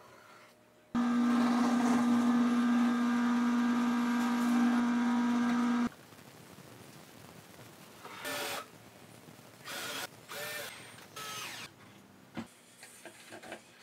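A cordless drill runs at one steady speed for about five seconds, starting and stopping abruptly. A few short squeaks and knocks follow.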